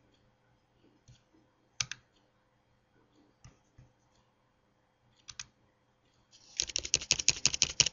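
A few single mouse clicks, then a quick run of keystrokes on a computer keyboard for about the last second and a half, as the default name in a Save As box is edited.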